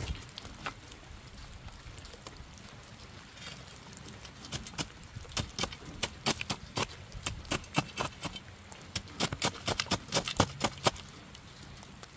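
A run of irregular sharp clicks and taps, sparse at first and coming thick and fast through the middle and latter part.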